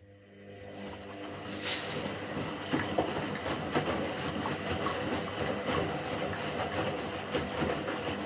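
Washing machine drum turning: the motor hum and the rattle and clatter of the load build up over about the first second and a half, hold steady, then start to die away near the end.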